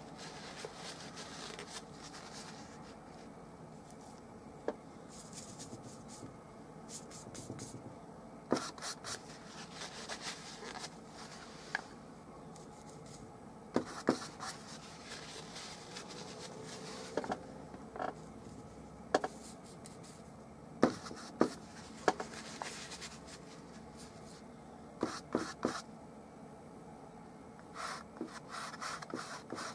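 Large flat bristle brush loaded with oil paint scrubbing and dabbing across a canvas, a soft scratchy rubbing broken by scattered sharp taps and clicks, the loudest about two-thirds of the way through.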